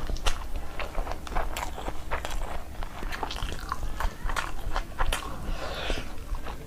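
Close-miked chewing and biting: a person eating, with a quick, irregular run of wet mouth clicks and smacks.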